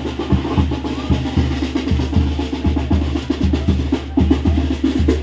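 Live band music with a quick, steady drum beat of bass drum and snare under sustained low bass notes, played for the tiger dancers.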